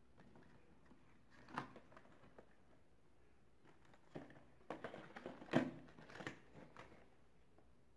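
Carded toy cars in plastic blister packs being handled and set down: faint plastic-and-cardboard clicks and rustles, one about a second and a half in, then a flurry from about four to six and a half seconds, the loudest a little after five and a half seconds.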